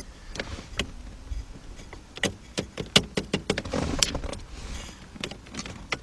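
Screwdriver backing a small Phillips screw out of a steering column's turn-signal mechanism: a run of small metallic clicks and scrapes, thickest in the middle of the stretch.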